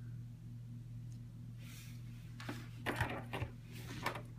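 Hands handling a small plastic toy figure: a few faint clicks and rustles over a steady low hum.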